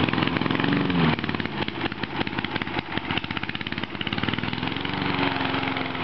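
Gas walk-behind lawn mower's small engine running, a fast, even putter of firing strokes, after a hard struggle to get it started.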